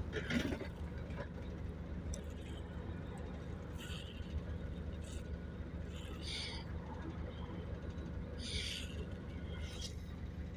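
Double-decker bus's engine running with a steady low drone, heard from the upper deck, with several brief hissing sounds over it.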